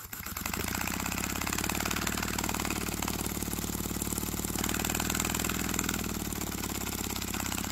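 A paper single-cylinder compressed-air engine running fast, puffing out of its paper exhaust pipe in a rapid, even chuffing. About halfway through, a fingertip covers the exhaust outlet and the hiss in the puffs softens; covered, it sounds quieter.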